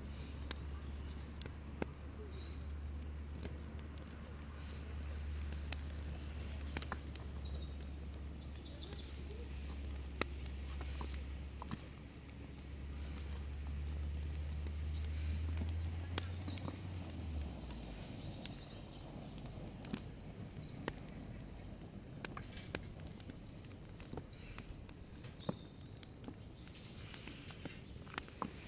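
Stone blocks knocking and clinking now and then as they are picked up and set down one by one, with birds chirping. A low steady hum stops about two-thirds of the way through.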